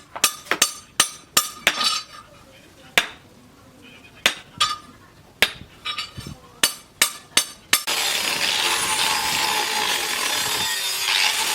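Hammer blows on steel ringing sharply on the anvil: a quick run of strikes, then slower, more widely spaced ones. About eight seconds in, a steady rasping noise abruptly takes over, like sawing or filing.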